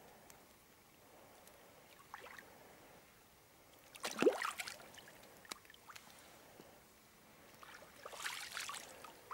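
Water splashing in the shallows as a carp is released at the lake's edge: a loud splash about four seconds in, then more splashing near the end.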